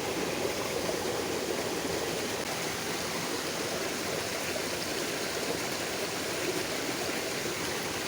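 Flowing stream water, a steady, even rush.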